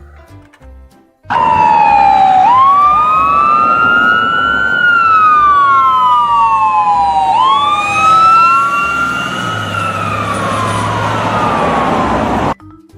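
Emergency-vehicle siren wailing loudly: two tones slightly out of step, each rising quickly and falling slowly through about two cycles. It starts abruptly about a second in and cuts off near the end.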